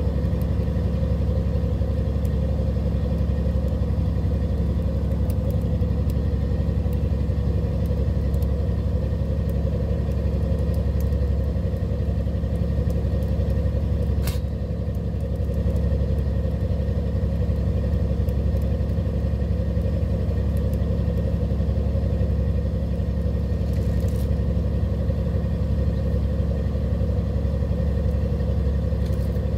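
A fishing boat's engine running with a steady low drone, and a single sharp click about halfway through.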